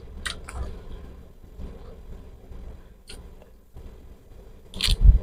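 Close-miked eating sounds: chewing fresh lettuce lalapan, with a few short sharp clicks and a louder one near the end.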